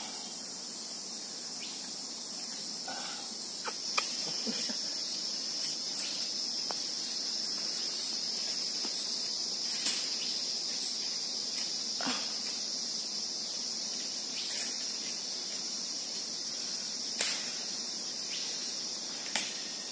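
Steady high-pitched drone of rainforest insects, with a few short clicks here and there.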